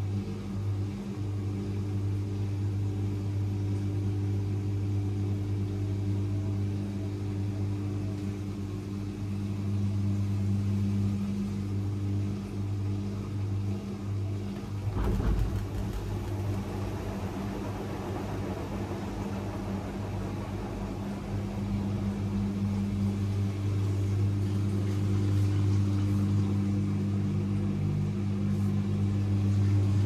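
AEG Lavamat 76850 front-loading washing machine in its final spin: the drum turns the laundry with a steady low motor hum. About halfway through there is a sudden knock, followed by a few seconds of rougher noise before the steady hum returns.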